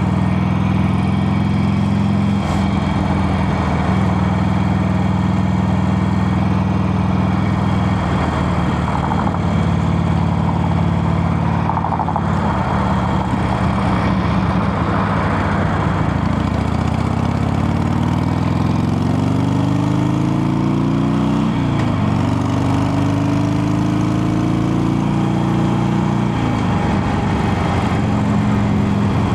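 Harley-Davidson Sportster 883's V-twin engine idling steadily, then accelerating twice with its pitch rising, the note dropping sharply at a gear change between the two pulls and again before it settles back to a steady low note near the end.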